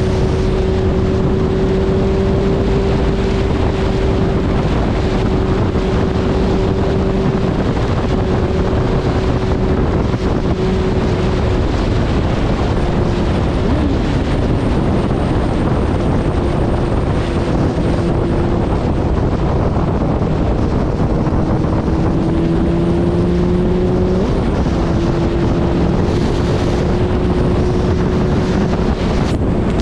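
Suzuki Hayabusa's inline-four engine running at a steady cruise, its note drifting slightly up and down, under heavy wind rush over the microphone.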